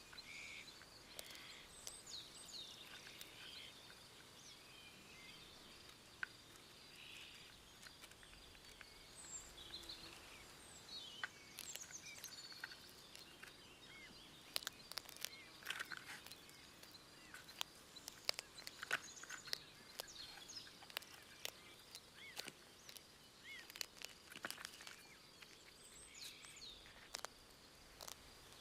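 Faint woodland ambience: scattered bird chirps over a steady, high, faint insect-like tone. Irregular sharp clicks and crackles begin about ten seconds in.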